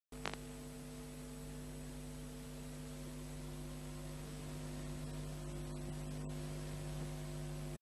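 Low steady electrical mains hum with a faint hiss, in place of the ident's soundtrack, with a short click just after it starts and a few faint ticks near the end.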